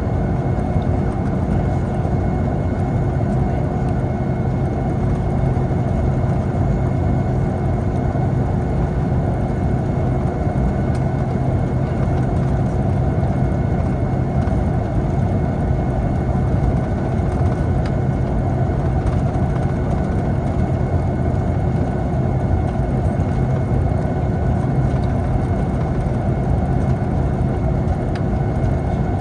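Boeing 757 jet engines and cabin air noise heard from inside the aircraft: a steady low hum with a constant high whine, holding level throughout.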